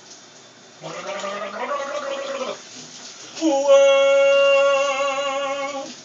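A man singing in the shower: a short sung phrase, then a long held note with vibrato starting about three and a half seconds in.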